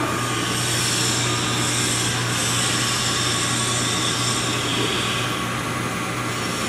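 Poreba heavy-duty engine lathe running with a steady mechanical hum from its drive and headstock gearing while the spindle speed is being set.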